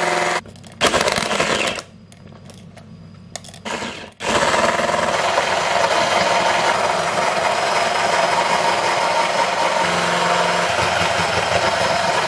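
Electric hand mixer whipping instant coffee into foam. Its motor runs with a steady whine, cuts out briefly twice in the first few seconds, then runs steadily from about four seconds in.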